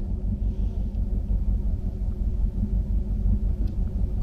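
Steady low rumble with a constant drone, like a motor or wind buffeting the microphone, ending in one sharp click.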